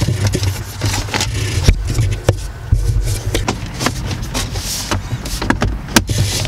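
Plastic centre-console trim of a 2010 Mazda CX-7 being pressed and worked into place around the gear shifter: an irregular run of clicks, knocks and scrapes as the panel is seated, over a steady low hum.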